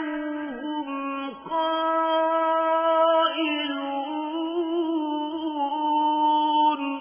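Quran recitation: a single voice chanting a verse in long, drawn-out melodic notes with gentle ornaments, fading out with an echo near the end.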